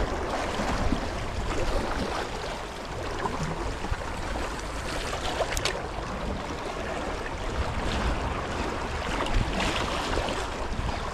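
Sea water washing and splashing against concrete breakwater blocks, with wind rumbling on the microphone. A single sharp click comes about five and a half seconds in.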